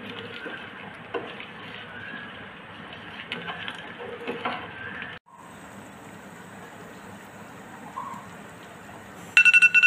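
Metal spoon stirring rice in a pot of boiling water, clinking against the aluminium pot, then the boiling water alone. Near the end an iPhone timer's alarm beeps rapidly as the five-minute rice-boiling countdown runs out.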